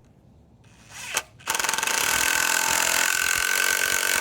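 Electric power tool motor running steadily at one pitch for a few seconds, starting about a second and a half in after a brief whir.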